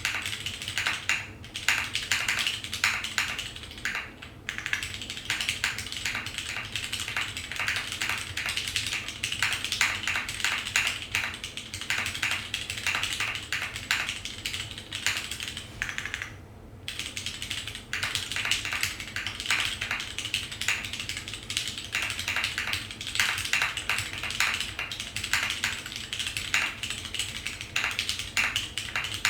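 Mechanical keyboard being typed on continuously: vintage Cherry MX Brown tactile switches under DCS keycaps on a top-mounted carbon fibre plate, fast clacking keystrokes with a short pause partway through.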